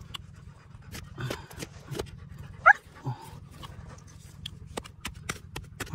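A dog whines once, a short wavering high cry about two and a half seconds in. Around it run many sharp clicks and knocks, coming thicker toward the end, over a steady low rumble.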